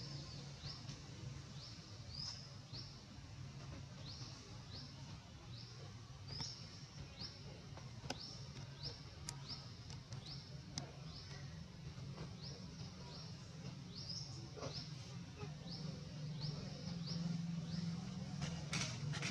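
A small bird calling with a short, high, rising chirp repeated evenly about twice a second, over a steady low background hum.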